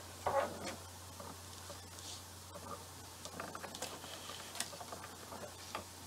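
Faint rustling and light ticking of lace, ribbon trims and strung pearls being handled and gathered into a tassel bundle.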